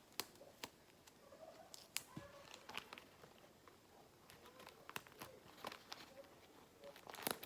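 Paper being handled while a paper squishy is put together: faint rustling with scattered sharp clicks and crinkles, a louder flurry of them near the end.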